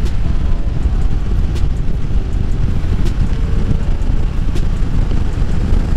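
Wind rushing over the microphone of a Yamaha Tracer 7 under way, with the bike's parallel-twin engine running steadily underneath.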